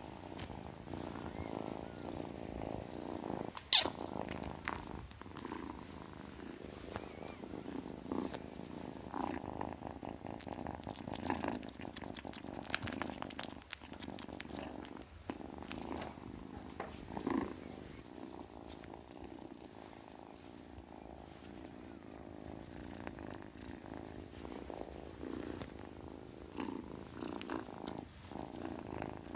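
Ginger-and-white kitten purring steadily. A short sharp click about four seconds in is the loudest sound.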